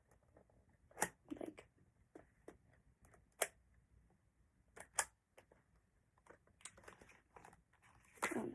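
Handling of a plastic instant camera just loaded with film: a few sharp clicks about a second or two apart, the loudest about a second, three and a half and five seconds in, with fainter taps between.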